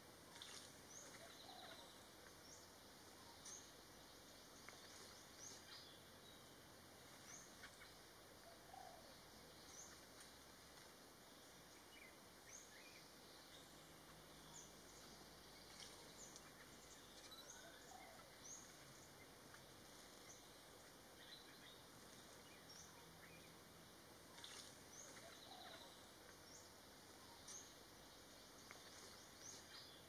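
Faint forest ambience with scattered short, high bird chirps every second or so and a few softer, lower notes in between.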